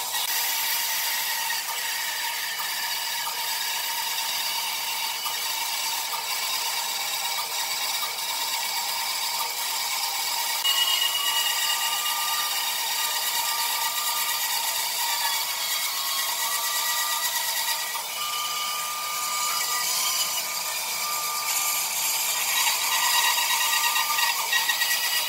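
Band saw running and cutting a curved line through a thick pine board: a steady, high-pitched noise of the blade working through the wood.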